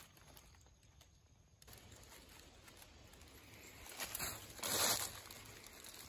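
Footsteps rustling through dry fallen leaves on the forest floor: quiet at first, then a couple of short rustles about two-thirds of the way through.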